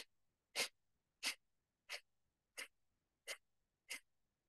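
Kapalbhati breathing: short, sharp exhalations forced out through the nose as the abdomen is pulled in, in a steady rhythm of about three every two seconds.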